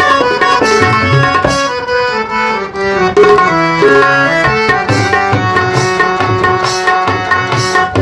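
Background instrumental music with a drum beat under a melody.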